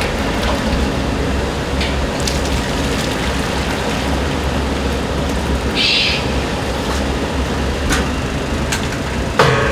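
Steady low rumble of a commercial kitchen's burners and extraction running, with a few light clicks and a short hiss about six seconds in. Near the end, water starts running as if from a tap.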